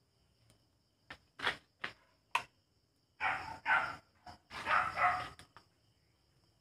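A dog barking: a few short barks, then two louder pairs of barks about three and five seconds in.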